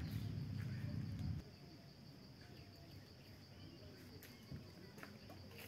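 Insects shrilling steadily at one high pitch, with faint bird chirps and a few light clicks. A low rumble fills the first second and a half and cuts off suddenly.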